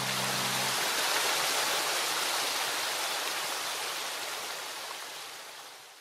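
Small stream cascading over rocks, a steady rush of water that fades out over the last few seconds.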